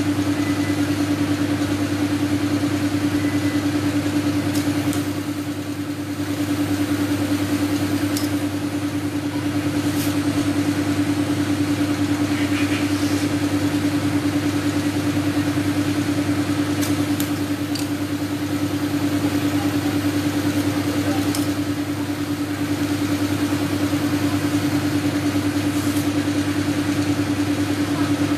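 Air compressor running steadily with a constant hum while it feeds air through a coiled hose into a walk-behind tractor's front tyre. A few faint clicks sound over it.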